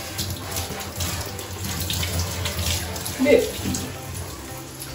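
Water running from a handheld shower head wrapped in a towel, spraying onto a wet puppy's coat; the towel softens the water pressure. A short pitched sound a little over three seconds in.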